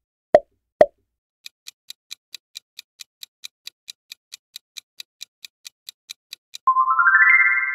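Quiz sound effects: two short pops, then a clock-like countdown ticking at about four to five ticks a second for about five seconds, then a rising chime of stepped tones that rings on and fades near the end.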